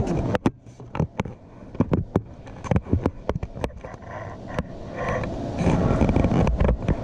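Small metal clutch parts being handled and set in place: a run of sharp clicks and knocks, several a second, followed over the last second or two by a louder rough rubbing and rumbling noise.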